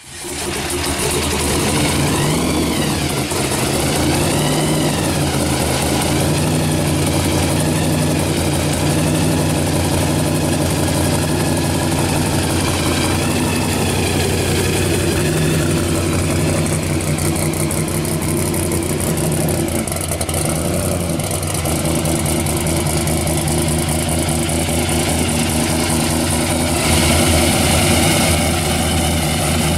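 Supercharged V8 of a 1984 Camaro pro street drag car, topped with a blower and fuel-injection hat, running at a steady idle.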